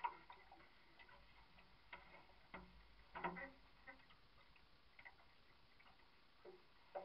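Near silence with faint, irregular ticks and clicks, the louder ones right at the start and about three seconds in.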